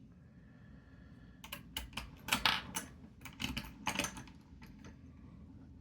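Small metal parts of a Ferrari-made cupboard hinge's sprag-clutch mechanism clicking as it is put back together: a quick run of about a dozen sharp clicks in the middle seconds.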